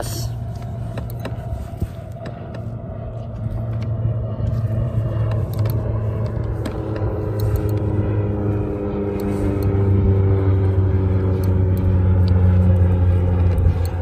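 Wind rumbling on the microphone over open water, with a steady mechanical hum that slowly drops in pitch during the second half.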